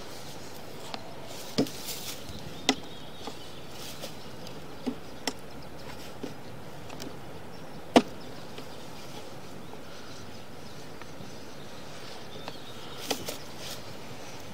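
Sewer inspection camera being pushed through a drain pipe: scattered sharp knocks and clicks over a steady hiss, the loudest about eight seconds in.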